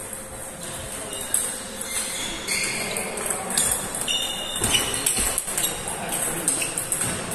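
Table tennis rally: the plastic ball clicking off the rubber-faced bats and the table in quick, irregular strokes.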